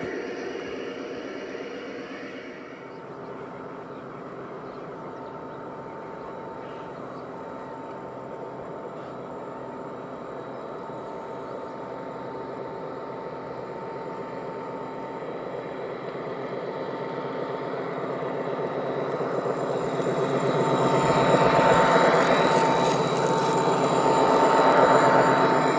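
G-scale model train led by BNSF SD70ACe diesel locomotives running along garden railway track, a steady whine over the running noise. It grows louder as the locomotives approach and pass close by, loudest about 22 and 25 seconds in.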